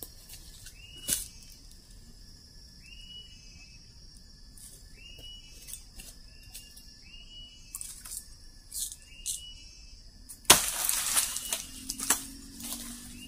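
Forest insects hum steadily while a short high call repeats about once a second. About ten seconds in comes a sudden loud rustle and crack of leaves and stems, as a plant stalk is cut and pulled with a machete, followed by a few sharp clicks.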